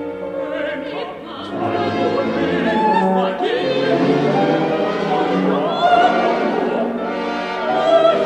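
Contemporary orchestral music with operatic singing: a held orchestral chord, then from about a second and a half in, a classically trained voice sings with wide vibrato over the orchestra.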